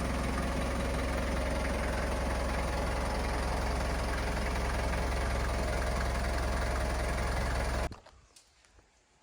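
Diesel engine of a Toyota 4FD20 forklift idling steadily, with a strong low hum. It cuts off suddenly about eight seconds in, leaving only faint scattered clicks.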